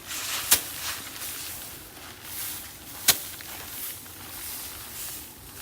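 Two sharp thwacks about two and a half seconds apart, with faint rustling between: sheaves of harvested rice being beaten by hand to thresh out the grain.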